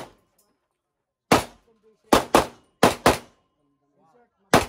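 Handgun shots: six in all. A single shot comes about a second in, then two quick pairs, then one more shot near the end.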